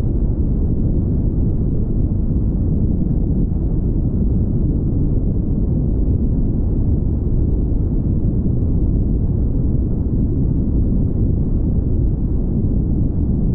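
Steady low rumble of wind and road noise from a car travelling at highway speed.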